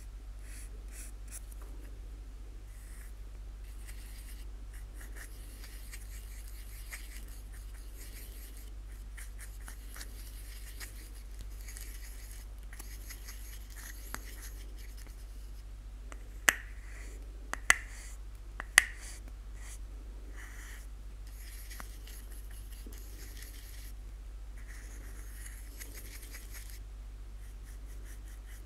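Fine paintbrush scratching and brushing against a small clear plastic piece in short, soft strokes, with three sharp clicks about a second apart a little past the middle. A steady low hum runs underneath.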